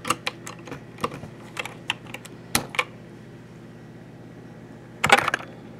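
Mechanical keyboard being handled: scattered light clicks and clacks of keys and plastic keycaps as a keycap is pulled off and the switches are pressed, with a louder cluster of clacks about five seconds in.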